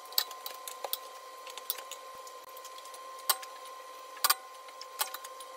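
Scattered sharp metal clicks and clanks, about seven of them with a double knock about four seconds in, from a lug wrench and wheel-lock key being fitted to lug nuts. They sit over a steady faint hum. No air ratchet is heard running.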